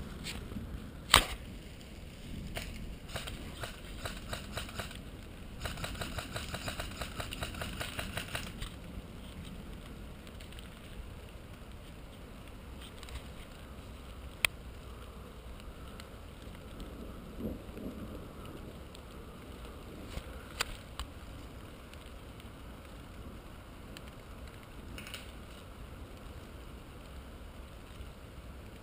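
Airsoft gun firing: a single sharp shot about a second in, then a rapid, evenly spaced string of shots lasting about three seconds. A few isolated sharp clicks follow later.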